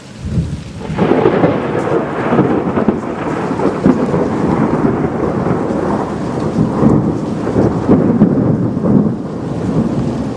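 Thunder from a nearby strike, breaking sharply about a second in, then rumbling and crackling for several seconds before easing off near the end, over steady rain.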